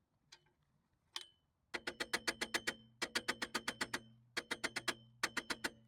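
Rivet being pounded flat on the steel top of a high-lift jack: two single taps, then four quick runs of rapid metal-on-metal blows, about eight a second, the jack ringing under them.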